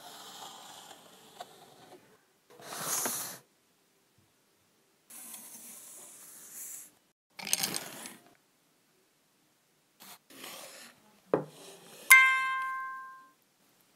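Several short bursts of scraping, rustling noise, a sharp click about eleven seconds in, then a single bell-like ding near the end that rings out for about a second.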